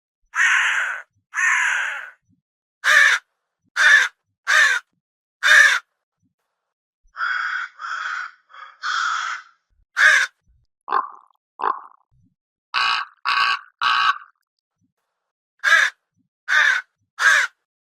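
Crow cawing: repeated harsh caws in runs of two to four, with pauses of silence between the runs. Two of the calls near the middle are shorter and lower than the rest.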